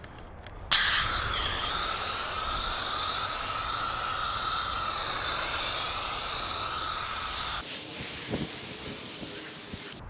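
Pressure washer foam cannon spraying foam onto a car: a steady hiss that starts abruptly about a second in.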